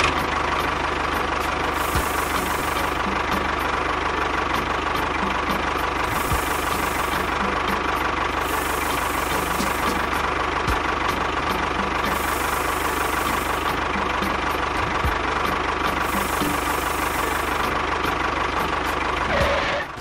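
A motor running steadily, engine-like with a low chugging rumble and a constant whine; it cuts in abruptly and stops just before the end.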